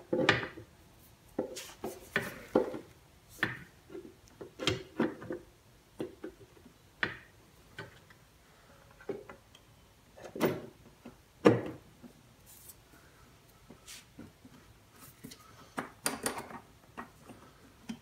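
Scooter CVT cover being worked onto its locating pins and pressed into place: a string of irregular knocks, taps and rubs, with two louder knocks a little past halfway.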